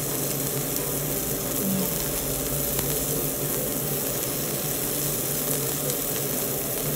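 Chicken and green-pepper satay skewers sizzling steadily in a little oil in a nonstick frying pan, with faint scattered crackles.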